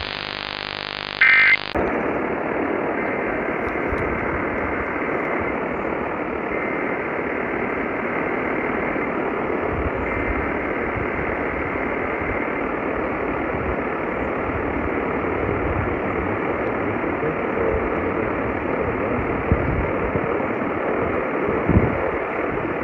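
A short, loud electronic data burst about a second in, typical of the end-of-message signal that closes an EAS alert. Then a steady, even static hiss from a radio receiver with no programme on it, running on unchanged.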